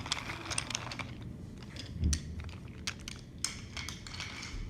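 Wooden toy railway pieces clicking and knocking as they are handled and moved, with a dull thump about two seconds in.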